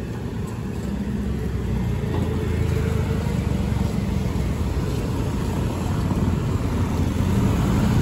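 Passing road traffic: car, van and motorcycle engines and tyres making a steady low rumble that grows a little louder near the end.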